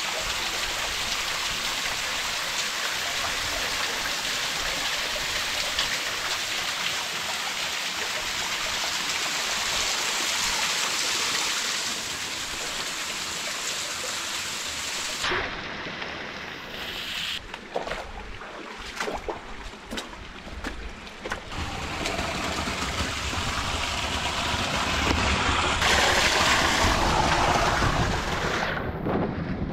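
Water pouring steadily down a small waterfall in a sandstone slot canyon for about the first half. It stops suddenly, followed by scattered knocks and scrapes and then a low rumble.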